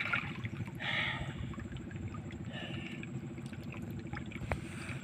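Water splashing and trickling around a person wading chest-deep, with a splash about a second in and a fainter one later.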